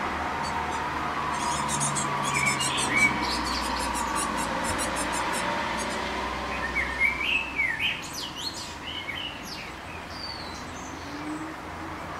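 Great tits calling: short chirps about two seconds in and a busier run of rising and falling chirps from about six to nine seconds, with a fast series of very high ticks in the first few seconds, over a steady low background hum.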